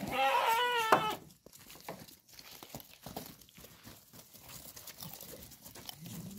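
A sheep bleats once, a wavering call lasting about a second. It is followed by the scattered taps and shuffles of a small flock's hooves trotting on bare dirt.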